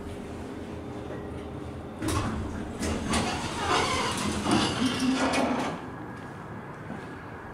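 A metal-framed glass door being pushed open and swinging shut, with a noisy stretch of a few seconds in the middle and a brief squeak near the end of it.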